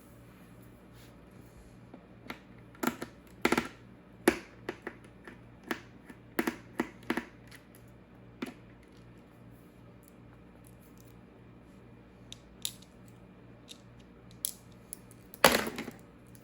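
Irregular clicks, taps and knocks of hard objects being handled, in a loose cluster and then a few more, with a louder, longer clatter about a second before the end.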